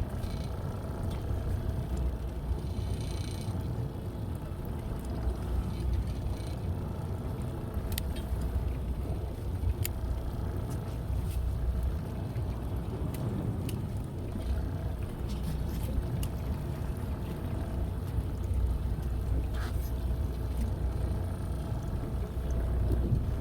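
Fishing boat's engine running steadily, a constant low rumble, with scattered short clicks and taps.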